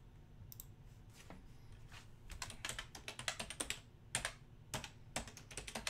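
Typing on a computer keyboard: a few scattered keystrokes at first, then a quick run of clicks from about two seconds in, with a short break near four seconds.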